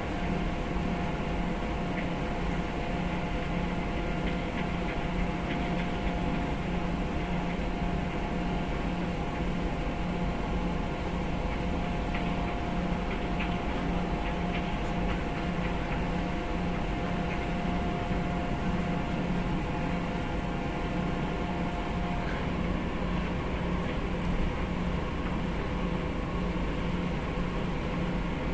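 Steady drone of a cargo ship's engine and on-board machinery, heard on the open deck: a constant low hum with a thinner whine above it that drops out about three quarters of the way through.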